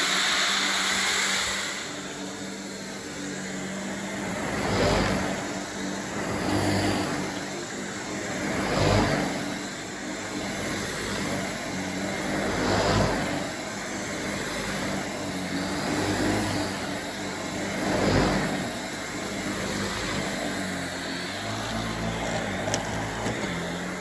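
LG CordZero cordless stick vacuum running steadily, its powered brush head agitating carpet. The noise swells about every four seconds as the head is pushed back and forth.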